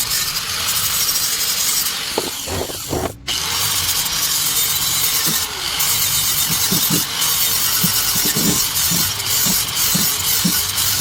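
Welder tacking steel exhaust pipe: a steady crackling hiss in two long runs, with a short break about three seconds in.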